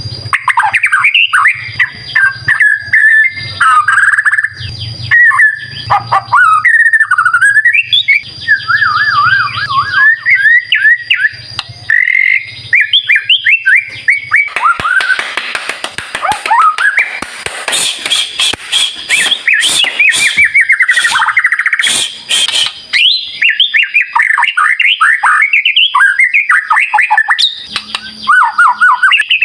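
White-rumped shama singing a loud, continuous run of fast, varied whistles and trills. About halfway through it breaks into a harsher stretch of rapid rasping chatter, then returns to whistled phrases.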